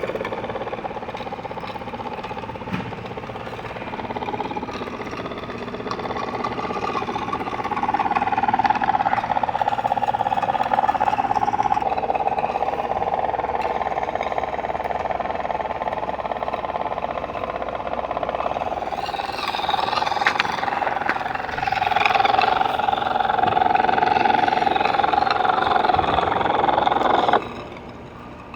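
Wilesco model steam boat's small steam engine running steadily; the sound cuts off abruptly near the end.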